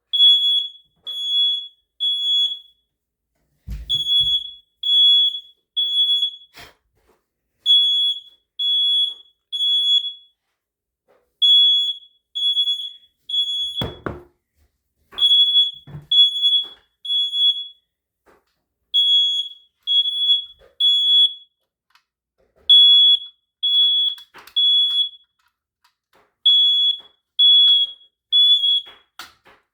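Ceiling smoke alarm going off in its three-beep pattern: three loud, high-pitched beeps, a short pause, then three more, over and over, set off by smoke from a candle and burning cardboard. A sharp knock comes about midway.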